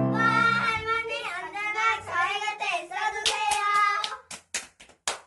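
A last piano chord fades, then young girls' voices sing out. About four seconds in, hand clapping takes over, quick and even, about four claps a second.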